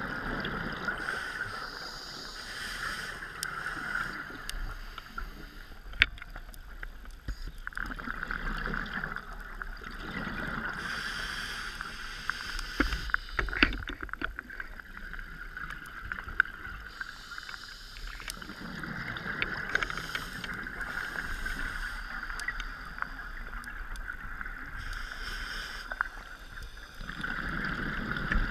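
Scuba diver breathing through a regulator underwater: slow cycles of hissing inhalation and bubbling exhalation, roughly every eight to ten seconds. A few sharp clicks come between breaths.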